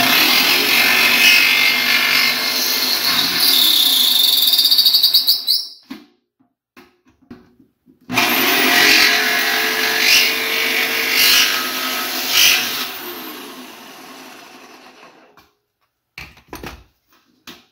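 Jigsaw cutting a slot through the side of a metal turkey fryer pot, in two runs with a pause of about two seconds between them. The saw's motor winds down at the end of the second run.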